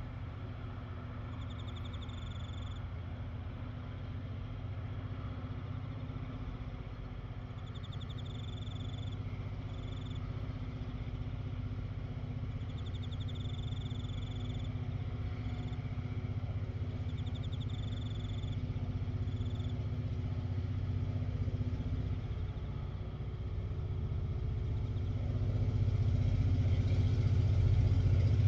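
Diesel freight locomotives working hard up a grade, a steady low engine drone growing louder as the train approaches. A short, high, trilling chirp repeats about seven times over the drone.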